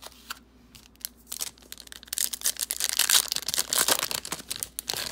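Plastic trading-card pack wrapper being crinkled and torn open: scattered crackles at first, building to a dense, loud crinkling through the middle.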